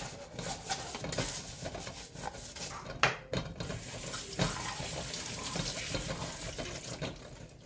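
Dishes scrubbed with a sponge and clinking in a kitchen sink, with a sharp knock about three seconds in; then the tap runs steadily as they are rinsed, stopping near the end.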